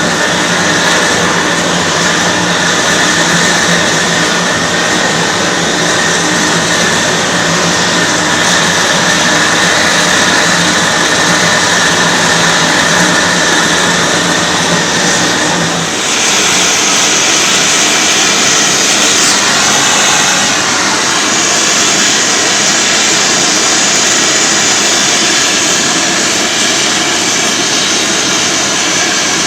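Gas torch flames burning steadily with a loud rushing noise while heating a copper boiler for silver soldering; the tone of the noise changes abruptly about halfway through.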